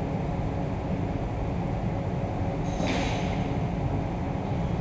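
Steady machine-shop hum with a faint steady tone in it, and a brief metallic clink about three seconds in as steel clamp hardware is hand-threaded onto a plate on a CNC mill table.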